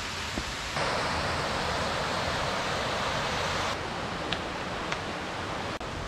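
Steady rush of water from a gorge stream and its waterfalls. It gets louder and brighter from about a second in for about three seconds, then drops back.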